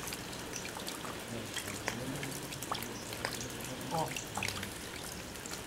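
Faint, distant voices talking under a steady outdoor hiss, with a few light scattered ticks.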